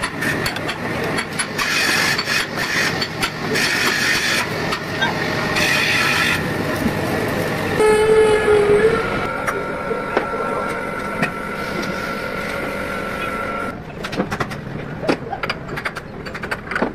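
Metal clatter and workshop noise as the gearbox gear stack is worked on. About halfway through, a lathe runs with a steady whine as it works a steel part. Near the end come a series of sharp hammer taps, driving a synchro hub down onto the gear stack.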